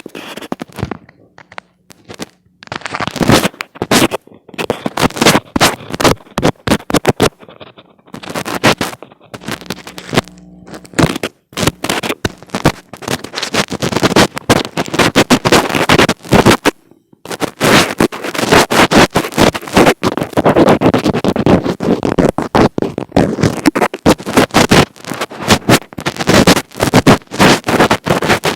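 Hands rubbing, tapping and scratching directly on an earphone microphone, making loud, rapid crackling and scraping noise in quick strokes, with brief pauses about eight and seventeen seconds in.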